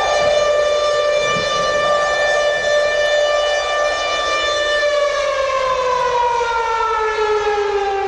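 Civil defense siren wailing on one steady tone, then falling in pitch as it winds down from about five seconds in.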